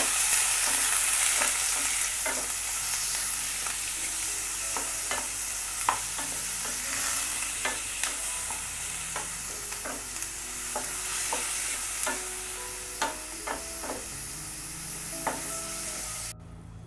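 Pieces of lamb liver sizzling in hot olive oil in a pan while being stirred, with many sharp clicks of the utensil against the pan. The sizzle slowly dies down and cuts off suddenly near the end.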